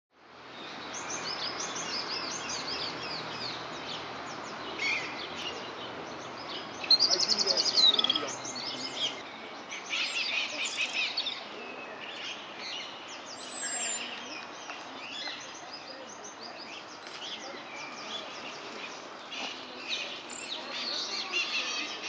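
Several small songbirds chirping and singing, with overlapping high phrases throughout. The loudest is a rapid trill about seven seconds in, ending in a falling run.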